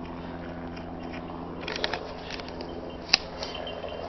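Rustling and crackling of someone pushing through dry undergrowth and leaf litter, with a sharp snap about three seconds in, over a steady low hum.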